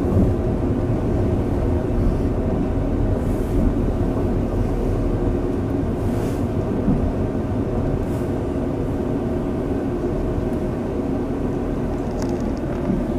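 Inside a diesel multiple-unit train rolling slowly into a station and coming to a stop: a steady low engine and running rumble with a faint hum, easing a little as the train slows.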